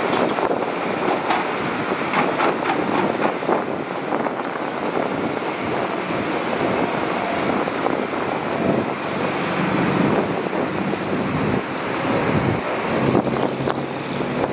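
Excavator at work: its diesel engine running steadily, with some clattering in the first few seconds and a steadier engine hum in the second half.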